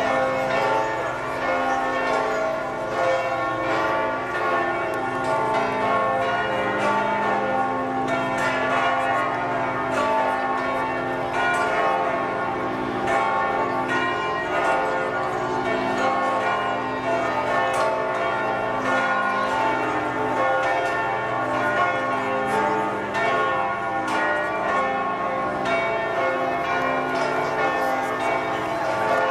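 Church bells ringing in a full peal, several bells sounding together and overlapping without a pause.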